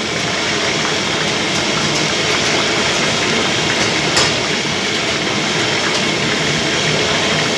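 Hot oil sizzling steadily in a large wok of deep-frying fish, with a single clink about four seconds in.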